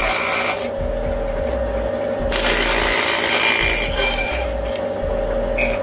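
Bandsaw running with a steady hum, its new blade cutting through a strip of softwood twice: one cut finishes about half a second in, and another runs from a little past two seconds to about four and a half seconds.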